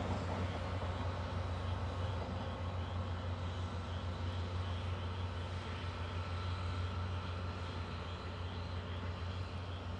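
Distant DE10 diesel-hydraulic locomotive hauling a night passenger train, a steady low engine drone that eases off slightly toward the end as the train moves along.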